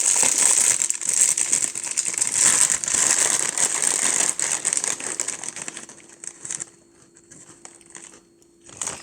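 Plastic packaging crinkling and rustling as it is handled, dense for about the first five seconds, then dying down to scattered crackles and clicks.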